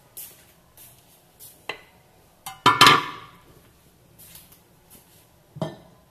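A metal tawa (flat griddle pan) set down on the kitchen counter: a loud metallic clank with brief ringing about three seconds in, with a few lighter knocks before and after.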